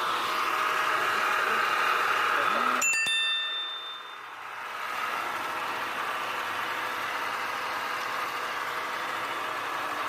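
Volvo 960 engine idling steadily while warming up. About three seconds in there is a sharp metallic click with a brief ringing ping, and the idle sound drops for a moment before coming back.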